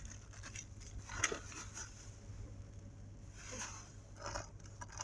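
Faint rustling and a few soft clicks from small plastic toy accessories being handled, over a steady low hum.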